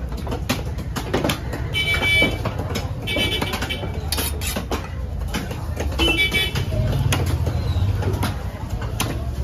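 Steady low engine rumble with three short high-pitched toots, under knife clicks and scrapes as a long knife slices a large fish fillet on a wooden chopping block.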